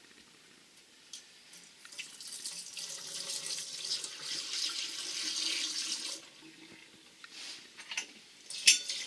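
Water running from a faucet for a few seconds, then a few short spurts and a sharp click near the end.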